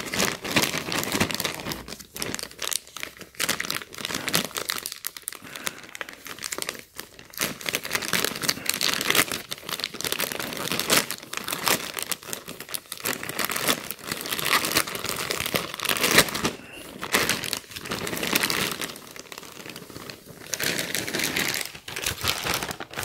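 Thin plastic poly mailer bag crinkling and rustling in irregular crackles as hands tear it open and handle it, pulling out the plastic shopping bag inside.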